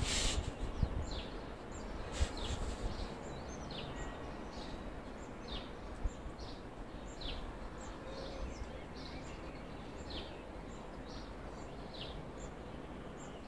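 A small bird chirping over and over, short falling chirps about once a second, over a steady low outdoor background rumble. A single sharp click about two seconds in.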